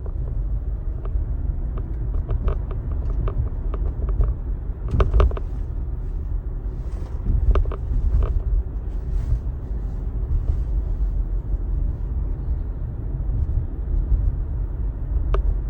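Steady low road and tyre rumble inside a moving car's cabin, with no engine note. A few faint clicks or knocks come through at scattered moments.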